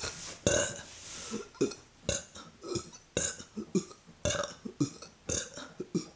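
A woman burping over and over, short burps about two a second, brought up by deliberately swallowing air.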